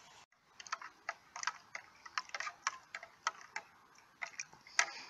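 A run of irregular, sharp light clicks and ticks, some in quick pairs, with the loudest near the end.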